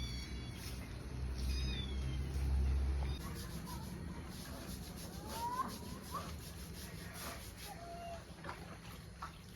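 Cat meowing several times in short, gliding calls, over a low rumble that is loudest during the first three seconds.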